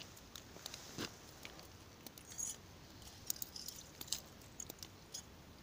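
Faint scattered crunching and clicking on snow and ice, with one louder knock about a second in.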